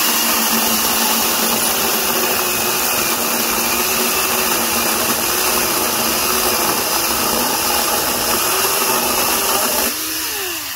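Ridgid 18-volt cordless chainsaw cutting through a 5- to 6-inch ash log: a steady electric motor whine with the chain rasping through the wood, its pitch dipping now and then under load. About ten seconds in it comes free of the cut, goes quieter and winds down with a falling whine.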